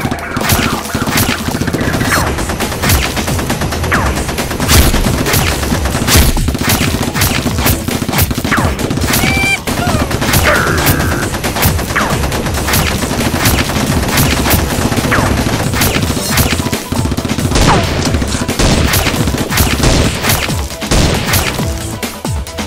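Dubbed gunfire sound effects: dense volleys of rapid gunshots that run on without letup, laid over background music.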